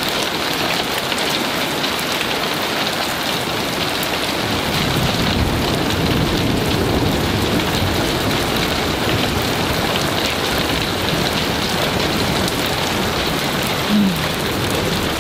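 Heavy rain pouring down, a steady dense hiss, with a low rumble of thunder swelling through the middle.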